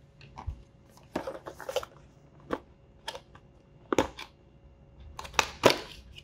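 Product box being opened and its packaging handled: scattered rustles, clicks and knocks, a few of them sharp.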